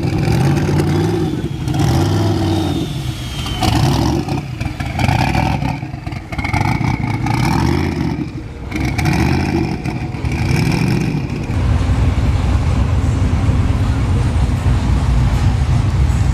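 Car engines revving repeatedly, each rev rising and falling, as cars drive off; for the last few seconds a steady low engine rumble takes over.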